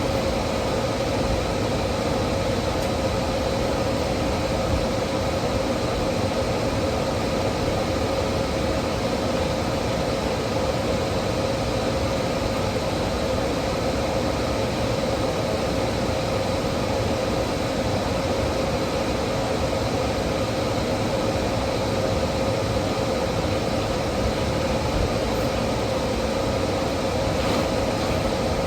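A steady mechanical hum over an even hiss, unchanging, with a clear mid-pitched tone and a fainter high whine in it.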